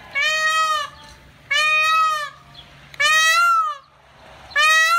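Peacock calling: four loud wails about a second and a half apart, each rising then falling in pitch.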